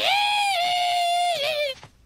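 Cartoon cricket's 'singing': one long, high, wavering screech that dips and cuts off just before two seconds in, as the cage is covered.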